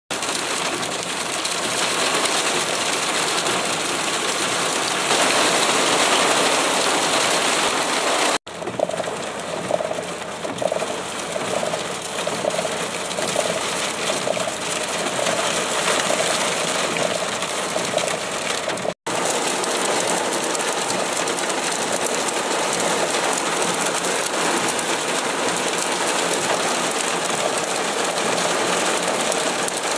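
Heavy rain pouring down and drumming on paving and puddles, a loud, steady rushing hiss that cuts out abruptly twice.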